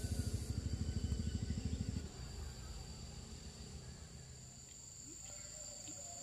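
Insects, crickets or cicadas, keeping up a steady high-pitched drone. For the first two seconds a loud, rapid low throb sounds over it, then cuts off suddenly.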